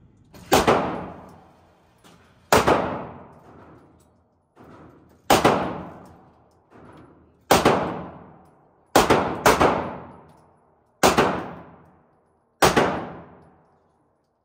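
Eight handgun shots fired in an indoor range lane, one to three seconds apart, with two in quick succession about nine seconds in. Each crack rings off in the enclosed range's echo, and two fainter shots are heard between them.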